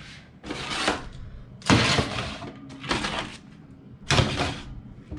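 Foil-lined metal sheet pans sliding onto oven racks: four clattering, scraping bursts with foil crinkling, over a steady low hum.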